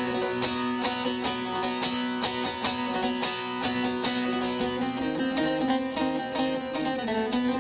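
Instrumental folk music on a plucked string instrument, notes picked quickly over a held melody line, with no singing.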